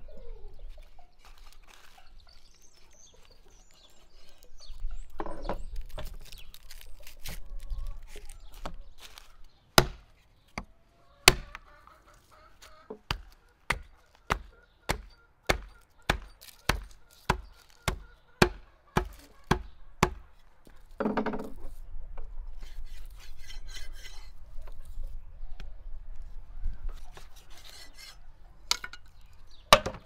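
Cleaver chopping through beef tail on a wooden chopping block: a run of sharp chops, about two a second for some ten seconds in the middle, and one more near the end. Chickens cluck in the background.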